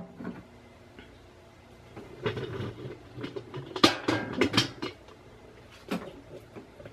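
Light kitchen clatter: a run of knocks and clinks of a pan and dishes being handled on the counter and stovetop, starting about two seconds in and loudest around four seconds, with one more knock near the end.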